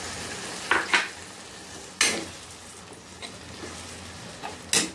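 Tomato-onion masala sizzling in a kadai as tamarind pulp is stirred in with a steel spoon. The spoon clinks and scrapes against the pan a few times over the steady sizzle.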